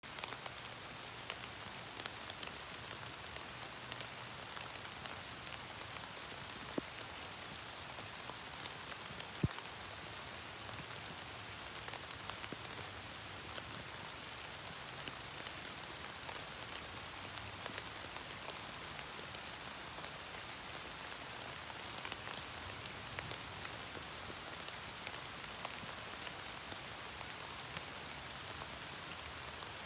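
Rain falling on broad leafy undergrowth: a steady patter with many separate drop hits scattered through it, one a little louder about a third of the way in.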